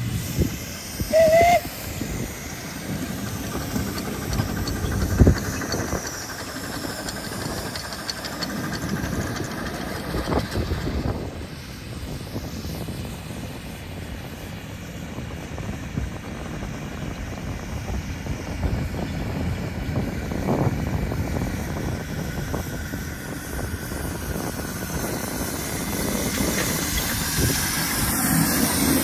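Tinkerbell-class 7.25 inch gauge miniature steam locomotive running with its passenger cars, steam hissing over the rumble of the train, with wind noise on the microphone. A sharp knock comes about five seconds in, and the train grows louder near the end as it draws close.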